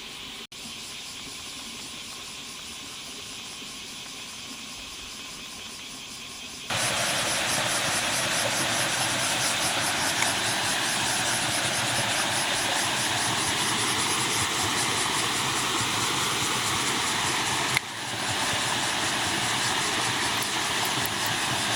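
Bear cicadas (kumazemi) in a loud, dense, steady buzzing chorus that starts abruptly about seven seconds in. Before that, a quieter steady hiss of flowing stream water.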